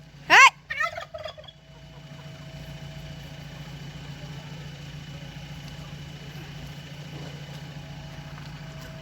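A chicken gives one loud, short rising squawk, followed by a few softer clucks. After that there is only a steady low background hum.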